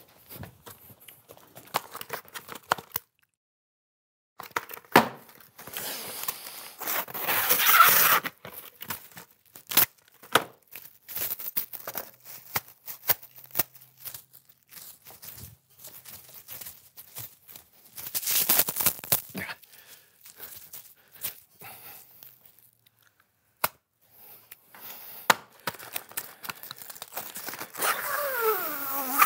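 Plastic cling wrap being handled and pulled off its roll, crinkling and tearing in several loud rustling bursts, with scattered clicks and knocks in between.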